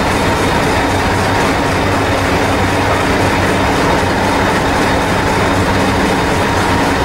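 Diesel engine of Hastings diesel-electric multiple unit 1001 idling steadily at a standstill, a constant drone with a low hum.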